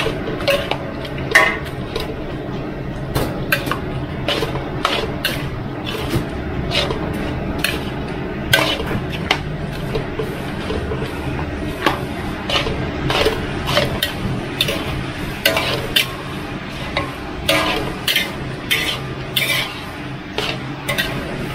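A metal spatula and a metal spoon scraping and clinking against a large steel wok as glass noodle salad is tossed and mixed. The clinks come irregularly, several every second, over a steady low hum.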